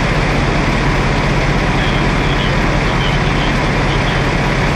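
Fire engine running, a loud, steady engine drone with a constant low hum.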